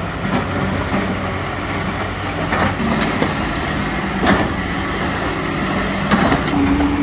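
Excavator's diesel engine running steadily during demolition of a brick building, with a few knocks and clatters of masonry as blocks and bricks are pushed and pulled.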